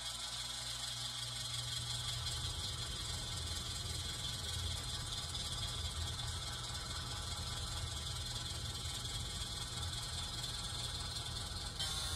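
HO scale Rapido 44-ton diesel switcher model giving a steady, low diesel-engine idle rumble from its sound speaker, with a constant hiss over it.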